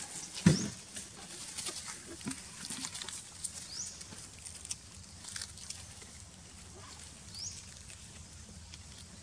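A troop of long-tailed macaques feeding on cucumbers: scattered clicks and rustles, a few short high rising squeaks, and a loud low thud about half a second in.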